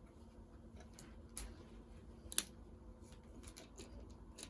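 Plastic Lego bricks being handled and pressed together: a handful of faint, scattered clicks and taps, the sharpest about two and a half seconds in.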